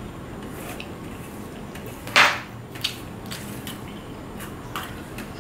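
Fingers working food around a stainless steel plate during a meal eaten by hand, giving a series of short scrapes and ticks against the metal, with one much louder knock about two seconds in.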